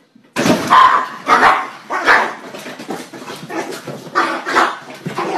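Small dog barking in a run of short, sharp barks, with a brief lull partway through.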